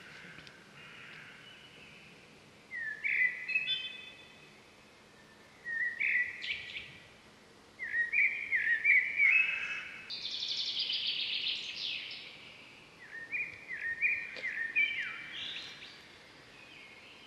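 A bird singing in bursts of short, quick, rising chirps, about four phrases a few seconds apart. A longer buzzy trill comes about ten seconds in.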